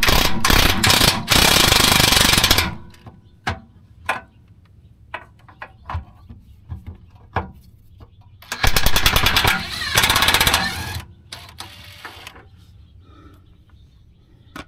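Cordless impact driver hammering as it spins off 10 mm bolts from the spare tire carrier mount under the vehicle. There is one long rattling burst at the start, a few light clinks of the socket and bolt, then a second burst lasting about two and a half seconds from about eight and a half seconds in.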